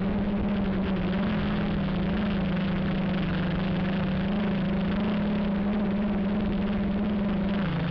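Q450 quadcopter's electric motors and propellers droning steadily in flight, heard from the camera on board, the pitch wavering slightly with throttle and dipping briefly near the end.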